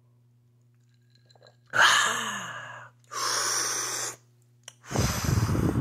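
A man's loud breathy exhalations after gulping a drink: a gasping "ahh" with a falling pitch about two seconds in, then a long blown breath, and near the end a deeper, rougher breath out.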